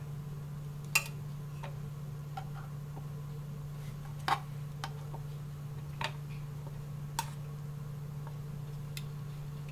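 Light, irregular clicks and taps of kitchen tongs picking baby corn spears out of a metal bowl and setting them down on a plastic plate, about eight in all, the sharpest about a second in and about four seconds in. A steady low hum runs underneath.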